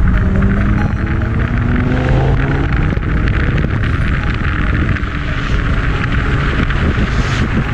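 A motor running up in pitch over the first two or three seconds, under a steady rushing hiss.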